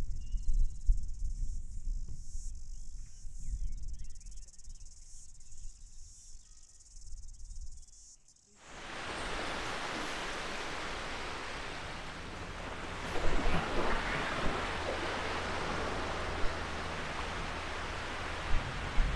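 A steady high-pitched insect chorus over a low rumble. About eight seconds in it cuts abruptly to a steady, even rushing noise with a few brief knocks in the middle.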